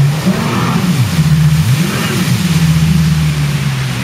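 Jet ski engine running, its pitch rising and falling twice as the throttle is opened and eased off, with a steady drone in between.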